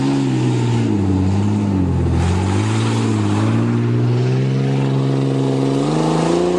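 Ford Ranger pickup's engine revving, its pitch dipping about two seconds in, climbing back, and rising again near the end.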